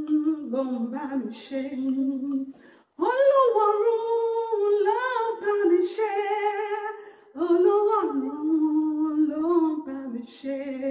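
A woman singing a worship song unaccompanied into a handheld microphone, in three long, held phrases with short breaths between them.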